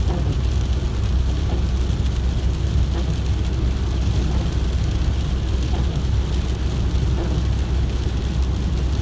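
Steady road and engine noise inside a VW camper van's cab while driving, a constant low rumble with a hiss of tyres and wind.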